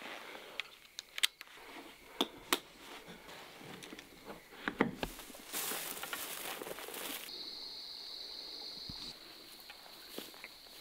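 Sharp metallic clicks and clinks of a hunter's saddle harness, rope and climbing sticks being handled and carried. In the second half a steady high-pitched drone sets in.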